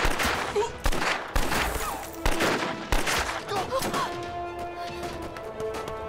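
Gunshots in a film battle scene: single shots with echoing tails, one every half second to a second over the first three seconds, then fewer, with background music holding long notes under them from about halfway through.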